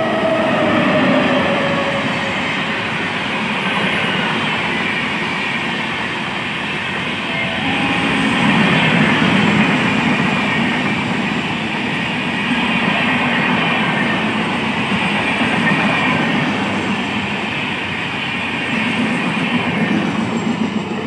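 Express train hauled by an electric locomotive running through a station at speed close by, a steady loud rush and rumble of the coaches' wheels on the rails. Near the start a tone drops in pitch as the locomotive goes past.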